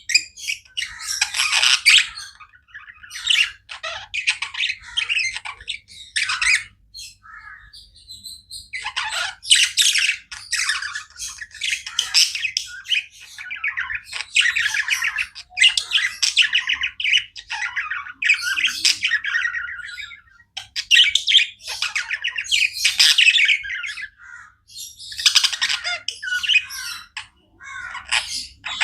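Budgerigars chirping and chattering: a busy, almost continuous run of short, high, scratchy calls, with a couple of brief lulls.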